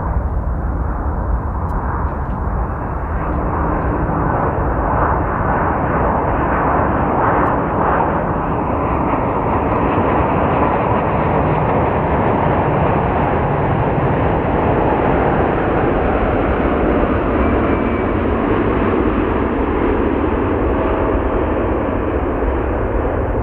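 Boeing 787 airliner's twin jet engines on landing approach: a steady rushing jet noise that grows fuller in the middle as the plane passes low on its way to the runway.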